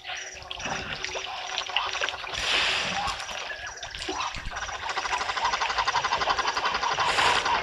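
African elephants drinking at a waterhole, water splashing and sloshing as trunks dip into and swish the surface, with two louder splashes. About halfway through, a fast rhythmic chirring starts up and carries on.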